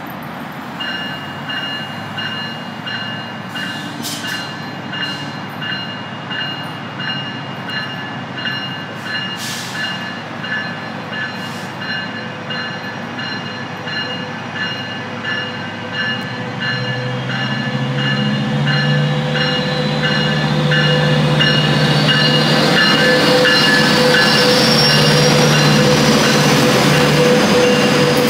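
Metrolink F125 diesel-electric locomotive departing. A bell rings steadily about twice a second. About halfway through, the locomotive's engine comes in low and grows louder, with a rising whine, as the locomotive rolls past.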